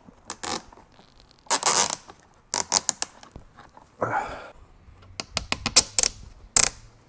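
Irregular sharp plastic clicks and snaps, with a few short rasping scrapes, as plastic body trim pieces and their clips are handled and pushed into place.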